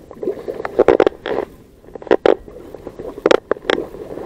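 Fleece sleeve rubbing and brushing over a body-worn camera's microphone, a series of irregular scuffs.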